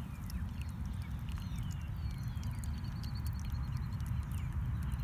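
Small birds chirping, with a quick high trill in the middle, over a steady low rumble.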